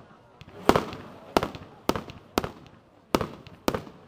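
Fireworks display: aerial shells bursting as a series of sharp bangs, about six in four seconds at uneven spacing, each with a short echoing tail.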